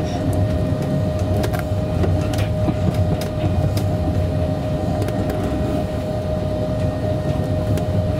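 Heathrow ULTra personal rapid transit pod, a small battery-electric rubber-tyred car, running along its guideway, heard from inside the cabin: a steady rumble with a constant whine over it and occasional light clicks.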